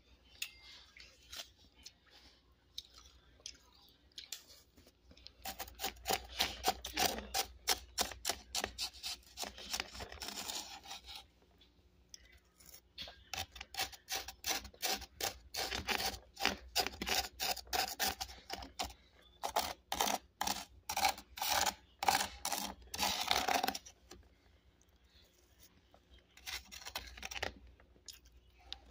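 A person chewing a mouthful of freezer frost close to the microphone: rapid, crisp crunching in long runs, broken by a few quieter pauses.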